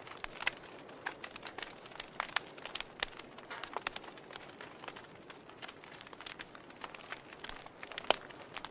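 Wood fire in a fireplace crackling, with irregular sharp pops and snaps over a soft hiss; one louder pop about eight seconds in.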